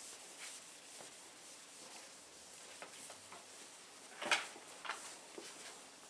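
Felt eraser wiping a chalk blackboard, faint rubbing strokes with the loudest about four and a half seconds in.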